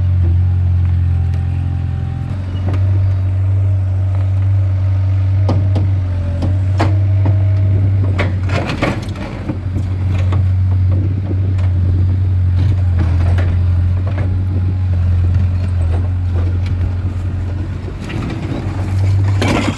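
Skid steer engine running steadily, with scattered cracks and knocks of concrete blocks breaking and shifting as the machine works the basement walls; a cluster of impacts comes about halfway through and a loud one near the end.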